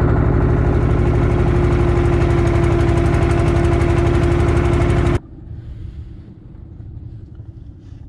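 Small fishing boat's engine running loudly and steadily with a fast, even beat, then cutting off abruptly about five seconds in, leaving a quiet low rumble.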